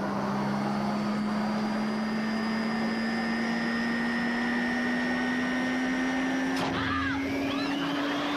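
A comedy gadget's motor (the "turbo flocker") whirring steadily, its pitch creeping slowly upward as it spins up, with a sharp crack about two-thirds of the way through.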